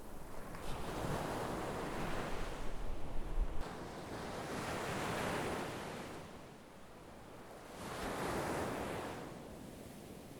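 Sea waves breaking and washing in, rising and falling in about three swells of surf. Wind buffets the microphone with a low rumble in the first few seconds.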